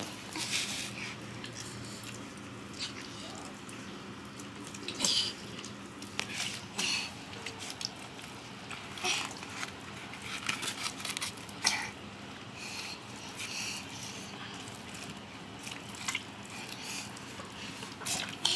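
Hands working a ripe palmyra palm fruit, pulling off its cap and tearing at the fibrous pulp: irregular crackling, tearing and rustling with a few sharp clicks, over a faint steady hum.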